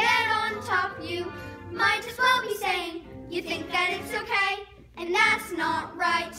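A group of children singing together, in short phrases with brief pauses between them.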